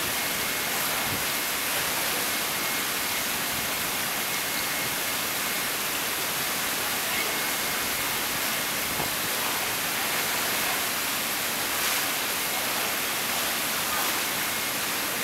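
Steady rush of pool water spilling into the slatted overflow gutter at the pool edge.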